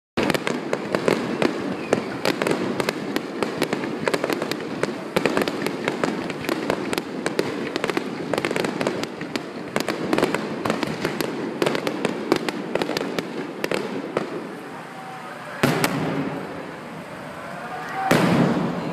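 Fireworks finale: a dense, rapid barrage of firework bangs and crackles that thins out after about fourteen seconds, followed by two big booms that ring on, the second near the end.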